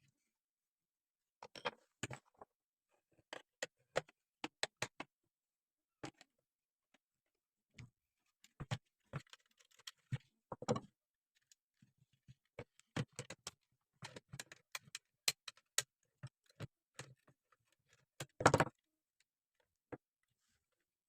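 Irregular clicks, taps and knocks of small hard parts being handled and set down, with a longer clatter near the end.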